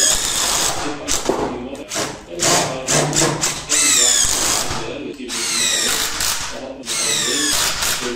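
DeWalt cordless drill driving screws into pine timber in a series of short bursts, its motor whine rising and falling in pitch with each pull of the trigger.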